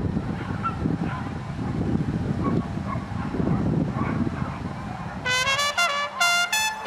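Background music led by brass horns. It is softer and without the horns for the first five seconds, and the horn lines come back in strongly about five seconds in.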